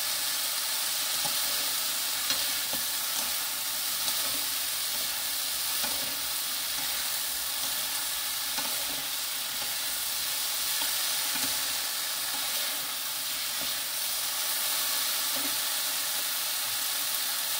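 Julienned Korean squash sizzling steadily in oil in a nonstick wok over medium-high heat, tossed with two wooden spoons that scrape and tap lightly now and then.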